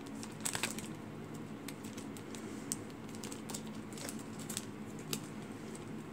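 Hands squeezing a slow-rising foam squishy toy beside its clear plastic bag: faint, scattered light clicks and crinkles of handling, a few near the start and a cluster a little after halfway, over a steady low room hum.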